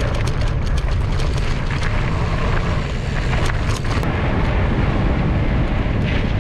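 Wind buffeting an action camera's microphone with a loud, steady rumble, and a rapid run of sharp clicks and rattles through the first four seconds, fewer after.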